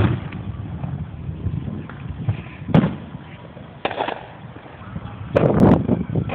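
Fireworks going off: a sharp bang at the start, single bangs about three and four seconds in, and a quick cluster of bangs near the end.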